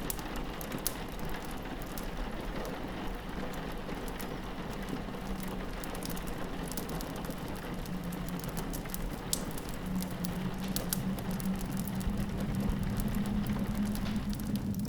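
Rain pattering on a window, with the sharp clicks and pops of a wood fire crackling throughout. A low steady drone comes in about a third of the way through and grows louder over the last few seconds.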